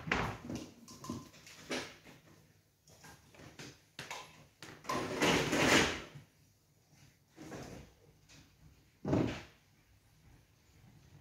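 Nine-pin bowling lane machinery between throws: a clatter at the start, a rattling rush of about a second and a half five to six seconds in as the pinsetter clears and resets the pins, and a single heavy thud about nine seconds in as the ball comes back on the ball return.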